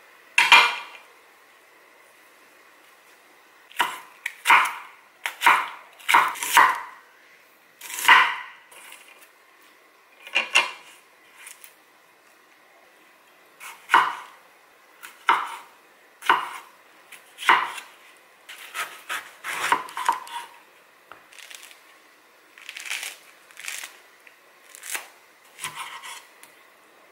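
Kitchen knife cutting food on a wooden cutting board, in irregular single strokes with pauses between them and a quicker run of cuts a little past halfway.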